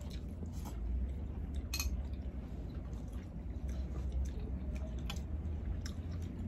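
Eating noodles: slurping and chewing, with scattered light clicks of chopsticks and spoons against bowls, over a steady low hum.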